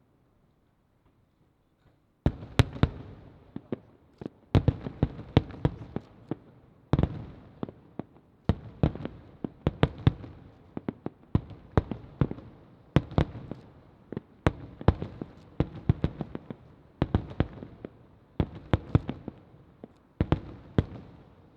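Aerial firework shells bursting in rapid succession. After about two seconds of quiet come clusters of sharp bangs, each trailing off in a rumble.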